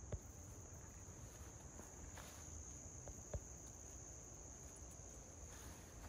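Insects, crickets or similar, singing in one steady high-pitched drone. A couple of soft taps from steps on the path, one at the very start and another about three seconds in.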